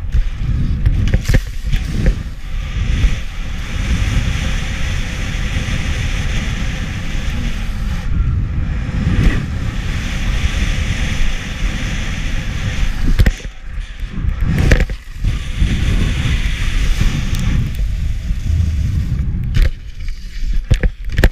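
Wind buffeting the microphone over the steady hiss of skis running on groomed snow, with several sharp knocks and clatters as the skis hit and slide terrain-park rails and boxes.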